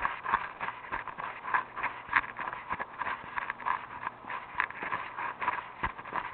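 Footsteps of a person walking at a steady pace, a little under two steps a second, each step a sharp knock.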